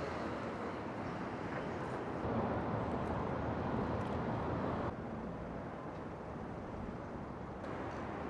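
Steady outdoor city ambience: an even hum of distant street traffic. It changes abruptly about five seconds in, growing duller, and brightens again near the end.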